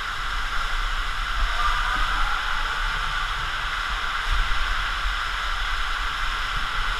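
Steady rush of water flowing down a water-park tube slide.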